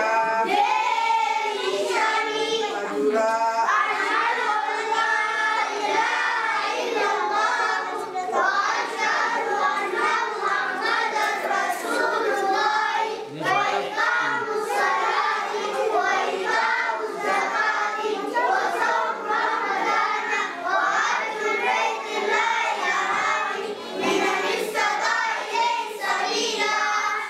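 A group of young children singing together in chorus, without a break.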